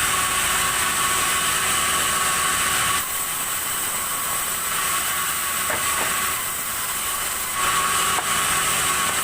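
Sawmill saw cutting a log of red timber: a steady high whine with a hiss. It is louder while the blade is in the cut for the first three seconds and again near the end, and eases in between.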